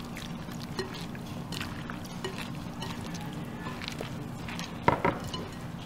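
Sliced raw vegetables being tossed by gloved hands in a glass bowl: a run of soft rustles and light clicks against the glass, with a sharper click about five seconds in, over a steady low drone.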